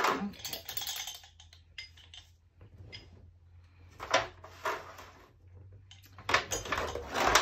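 Metal spray-gun parts clinking and clattering against each other and an aluminium foil tray as they are handled. The clatter comes in scattered bursts, with the loudest cluster near the end.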